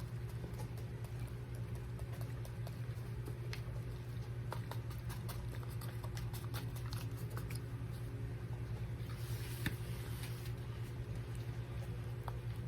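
Grated Romano cheese being shaken from its canister onto a slice of pizza: scattered light clicks and patter, with a short hissing shake about three-quarters of the way through, over a steady low hum.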